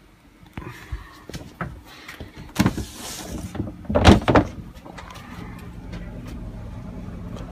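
Knocks and thuds of someone climbing a sailboat's companionway into the cockpit, with a brief scrape about three seconds in. A faint steady low hum follows near the end.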